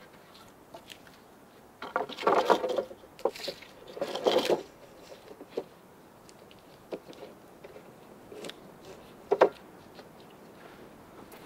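Wood being handled: two short scraping bursts about two seconds apart, then one sharp knock about nine seconds in, with faint scattered ticks between.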